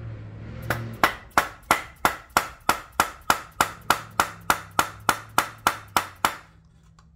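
Hammer tapping steadily on metal, about three blows a second for some six seconds, each blow with a short metallic ring. He is trying to drive a brass ring out of a throttle-body adapter plate, and the ring is not moving at all.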